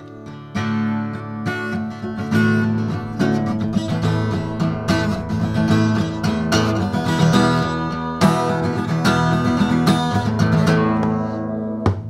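Acoustic guitar played, a run of chords with many picked and strummed notes ringing together, stopping near the end.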